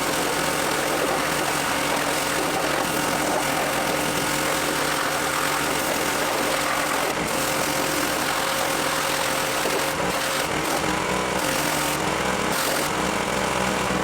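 Pressure washer running steadily: a motor hum under a continuous hiss of water spray. The spray hiss drops out briefly a few times after about ten seconds.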